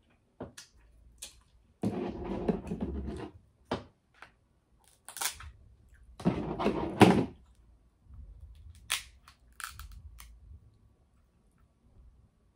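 Crab leg shell cracking and snapping by hand, with a scatter of sharp cracks, and twice a longer, louder wet mouth noise as the meat is pulled from the shell at the mouth.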